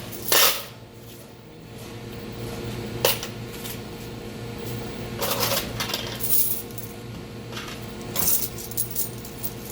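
Coins clinking as they are handled and counted out of a cash register drawer, in separate jingles a second or two apart, the loudest just after the start.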